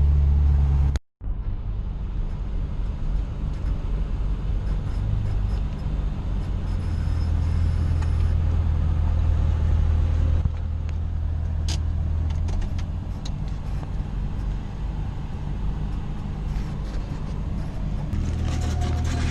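Car engine running steadily with a low, even hum and a few light clicks and knocks. The sound drops out briefly about a second in.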